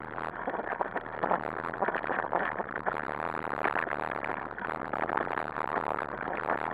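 Continuous rattling and clattering of a dog-pulled rig rolling fast over a rough dirt trail, the handlebar-mounted camera shaking with it.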